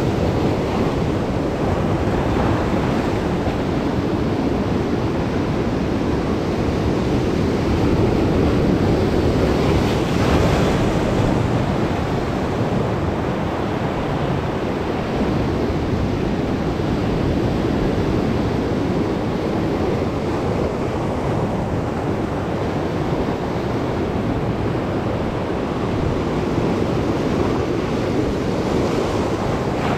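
Sea waves breaking and washing over shoreline rocks: a steady rush of surf that swells a little about ten seconds in.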